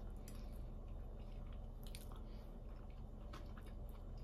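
Faint chewing of a mouthful of salad, with small scattered clicks, over a low steady hum.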